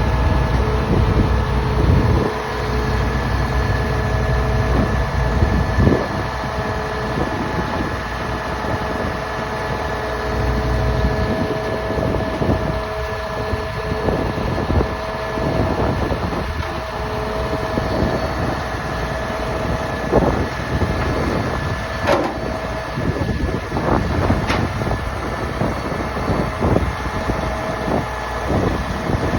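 A 2007 Schwing concrete pump running, with a steady engine rumble and a steady whine. The low rumble is heavier for the first six seconds and again around ten to twelve seconds in. Occasional knocks and clanks sound over it.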